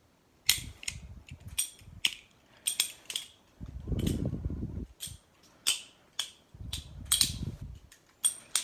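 Balisong (butterfly knife) being flipped: a string of sharp metallic clicks and clacks in irregular bunches as the handles and blade swing and knock together, with a few low rustling stretches of handling in between.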